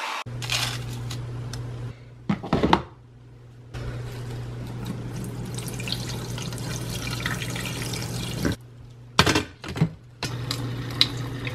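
Water poured from a glass carafe into the reservoir of a drip coffee maker, a long steady pour in the middle, with sharp clunks of the lid and carafe being handled about two seconds in and again near the end, over a steady low hum.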